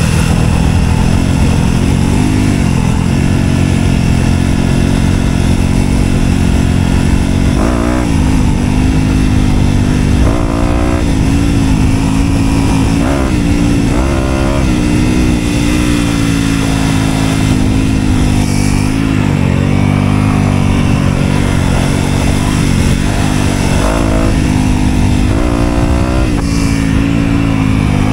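Dirt bike engine running continuously, its pitch rising and falling several times as the throttle is opened and closed.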